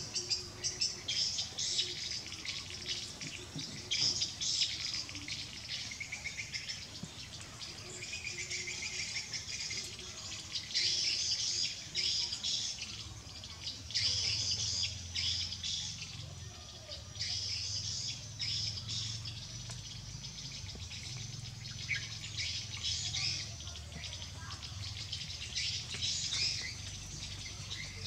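Outdoor chorus of birds chirping and insects trilling, a dense stream of short high chirps with no let-up.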